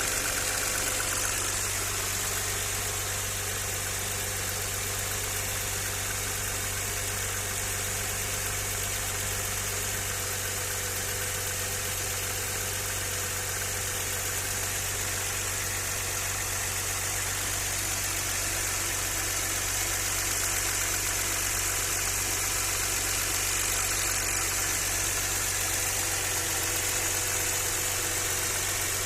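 Audi 100 C4's 2.6-litre V6 (ABC) engine idling steadily.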